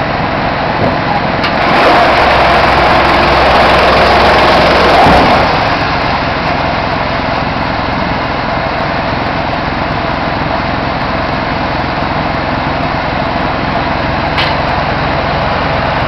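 Belt-driven drum wood chipper with a large electric motor running steadily, discharging wood chips. From about two to five seconds in it gets louder and harsher, then settles back to its steady running noise.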